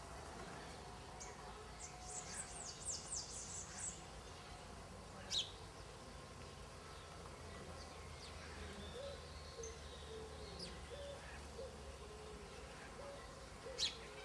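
Faint birds chirping: a quick run of high, falling chirps about two to four seconds in, and two sharp single chirps later.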